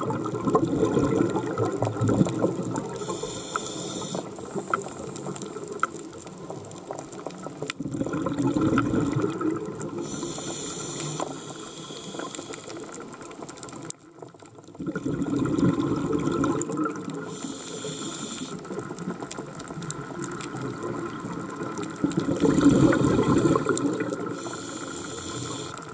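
Scuba diver breathing through a regulator, four slow breath cycles: each a gurgling rush of exhaled bubbles followed a second or two later by a high hiss of inhaled air through the regulator. Faint scattered clicks run underneath.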